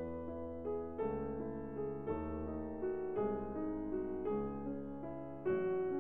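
Background piano music: a gentle tune of struck notes over a bass line, with the harmony changing about once a second.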